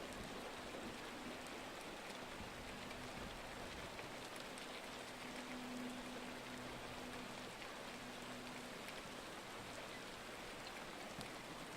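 Steady rain, an even hiss with scattered fine drop ticks. A faint low steady hum runs underneath and fades out about nine seconds in.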